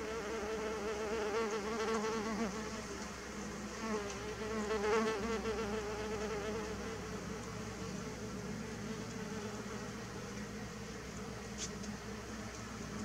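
Mason bees buzzing in flight as they come and go from their nest holes, the wing hum wavering up and down in pitch. It is loudest in the first half and fainter afterwards.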